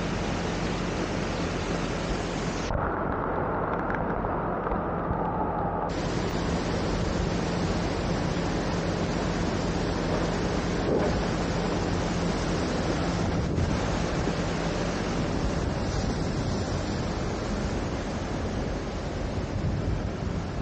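Brown floodwater rushing in a swollen stream under a road bridge, a loud, steady roar of churning water, with wind buffeting the microphone. A low steady hum runs underneath and fades out near the end, and about three seconds in the sound turns muffled for a few seconds.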